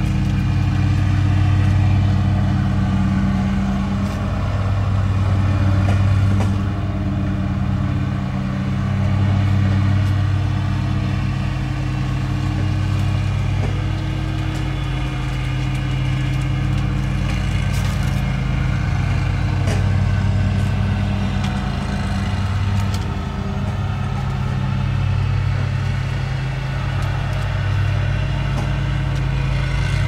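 Lawn mower engine running steadily, its level swelling and easing every few seconds.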